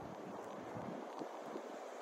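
Wind blowing across the phone microphone: a steady, even outdoor hiss with no alarm tones or passing vehicle in it.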